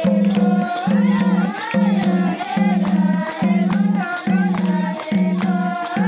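A group of villagers singing a Nepali Deusi-Bhailo folk song to a madal hand drum and a jingling tambourine. Under the voices, a low note repeats about once a second.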